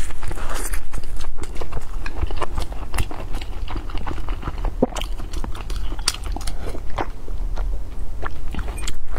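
Close-miked chewing of a steamed dumpling, with a bite near the start and a steady run of irregular, wet mouth clicks and smacks.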